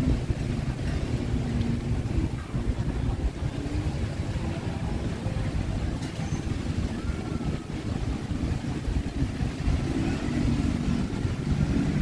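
Outdoor road ambience: motor traffic going by, with a steady low rumble of wind on the microphone.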